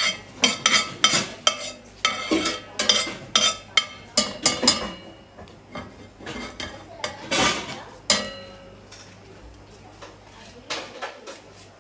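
A metal spoon clinking and scraping against a metal cooking pot. There is a quick run of ringing strikes through the first few seconds, a louder one later, and a few more near the end.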